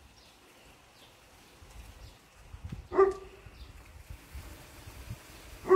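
A dog barking twice, two short single barks about two and a half seconds apart.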